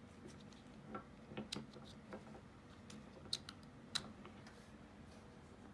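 Scattered light clicks and taps of hand-held tools being handled, with two sharper clicks about three and four seconds in.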